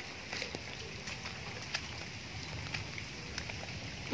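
Rain falling and dripping onto wet paving: a steady hiss with scattered small drip ticks, and a single thump at the very end.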